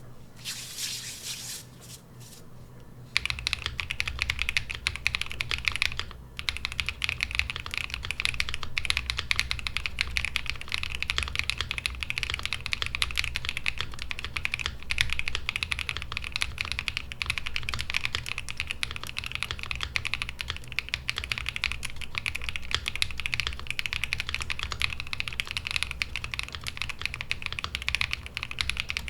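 Fast, continuous typing on a V65 gasket-mount mechanical keyboard with a polycarbonate plate, lubed KTT Kang White linear switches and GMK Shoko keycaps: a dense run of key clacks. The typing starts about three seconds in, after a short burst of noise, and pauses briefly around six seconds.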